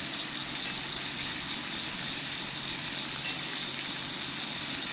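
Steak sizzling steadily in butter in a hot cast iron skillet.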